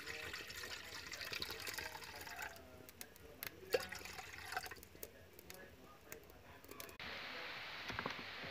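Liquid bubbling and popping in a pot over a gas flame, busy for the first couple of seconds, then thinning to scattered pops and clicks. Near the end it gives way to a steady hiss with a couple of light knocks.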